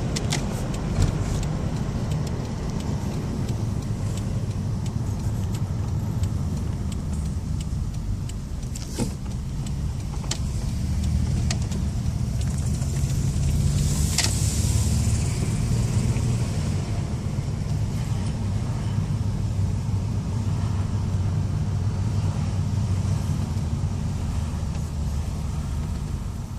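1993 Toyota Camry V6 engine running while driving, a steady low rumble with road noise that swells and eases, and a few scattered clicks. The engine is misfiring, with cylinder 3 dead from a bad fuel injector, the other injectors dirty and the spark plug wires bad.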